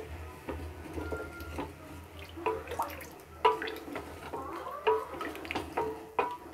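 A spatula stirring rice and peas in water in a stainless steel pot: sloshing water and scraping, with several knocks against the pot that ring briefly.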